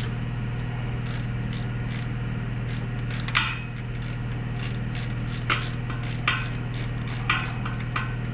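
Ratchet wrench clicking in quick runs as the fuel pump bolts are worked loose, with a few louder metal knocks, over a steady low hum.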